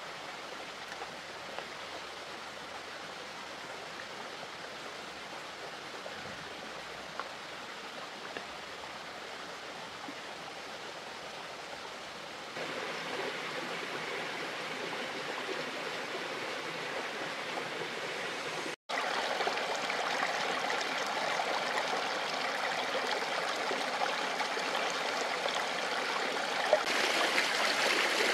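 Steady rushing of running water, with a few faint ticks. It gets louder in two steps, about halfway and near the end, with a momentary dropout between.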